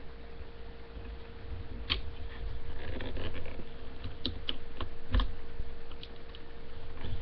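Plastic hook clicking and scraping against the pegs of a Cra-Z-Loom rubber-band bracelet loom as bands are worked over them. One sharp click comes about two seconds in, and a quick run of clicks follows between four and five seconds in, over a faint steady hum.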